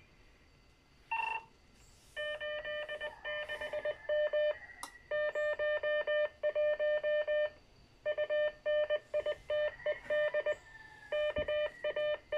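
CW identifier from a homemade Arduino repeater controller: a single beep tone keyed on and off in Morse code dots and dashes, starting about two seconds in.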